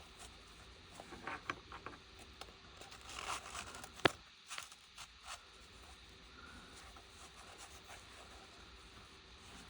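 Light scraping and rustling as small precision screwdriver bits are handled and slotted into their holder, with one sharp click about four seconds in. It is faint after about five seconds.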